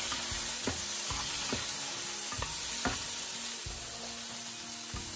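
Sliced bell peppers and sugar snap peas sizzling in oil in a frying pan as a spatula stirs them, with a few light knocks of the spatula against the pan.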